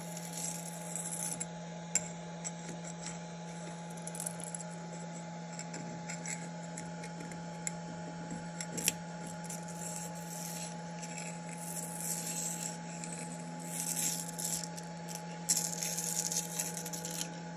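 A very thin sheet of freshly printed plastic being scraped and peeled off a textured 3D-printer build plate with a scraper blade, giving scattered light scratches and small clicks that are busiest near the end. A steady hum runs underneath.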